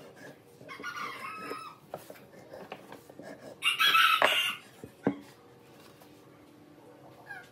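Two animal calls, each just under a second long, about a second in and again near the middle, the second much louder; light clicks and taps of marking tools on timber between them.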